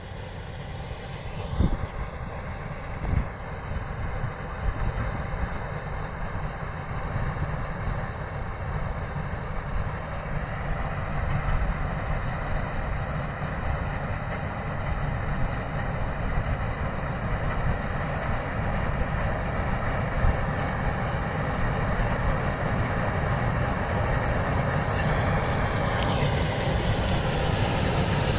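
D80 combine harvester running steadily while harvesting soybeans, a continuous machine drone that grows slowly louder. Two sharp knocks sound about two and three seconds in.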